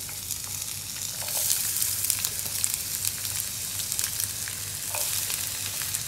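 Sliced onions sizzling as they fry in hot coconut oil in a nonstick pan: a steady hiss with many small crackles.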